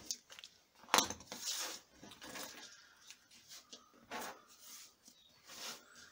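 Hands handling thin leather and a piece of board on a cutting mat: one sharp tap about a second in, then soft rustles and light brushes as the materials are laid down and smoothed.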